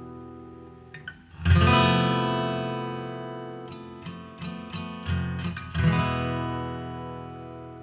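Acoustic guitar music: chords strummed and left to ring out slowly, with a strong strum about a second and a half in and another near six seconds, and a few single plucked notes between them.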